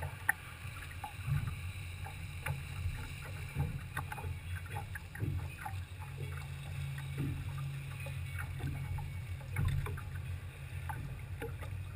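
Choppy water lapping and slapping against the hull of a boat sitting still, in small irregular splashes over a low steady rumble.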